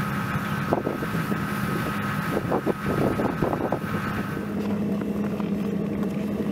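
Zubr portable forced-air heater running with a steady hum, blowing hot air through a metal duct onto a frozen car's oil sump to thaw it. A few short knocks come about halfway through.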